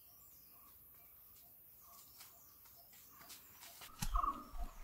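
Quiet forest ambience with faint, short bird chirps repeating. Near the end come a few louder footsteps on the trail and a brief call.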